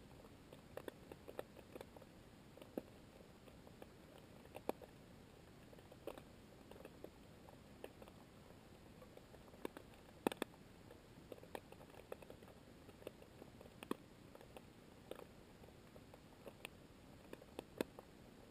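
Faint underwater ambience: a steady low hiss with scattered sharp clicks and crackles at an irregular pace, a few standing out louder.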